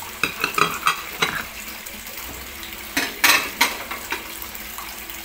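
Ceramic plates clinking and knocking as they are set down on a wooden table, a quick run of light knocks, then a louder short clatter about three seconds in.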